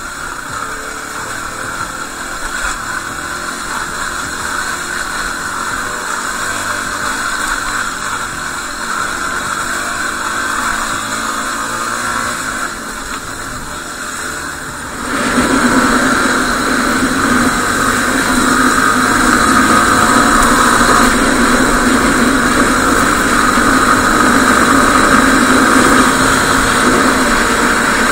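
Yamaha WR250R single-cylinder dirt bike engine running under way, mixed with wind noise, getting suddenly louder about halfway through.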